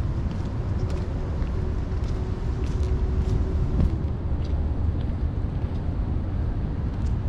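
Distant city traffic: a steady low rumble, with a faint steady hum over it for the first four seconds or so.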